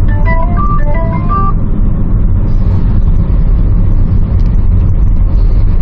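Steady low road-and-engine rumble inside the cabin of a 2018 Chevrolet Orlando cruising on a highway. A short electronic melody of stepping notes plays over it in the first second and a half.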